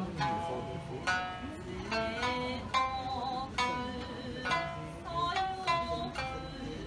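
Traditional Japanese music on a plucked string instrument: single notes plucked unevenly, about one or two a second, each ringing out and fading.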